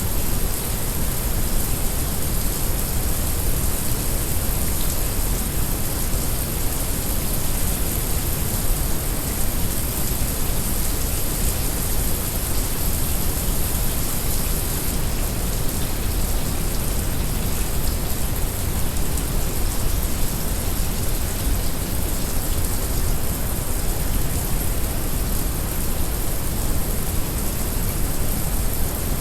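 Heavy rain falling steadily, mixed with brown noise: an even hiss over a deep, constant rumble, with no breaks or single events.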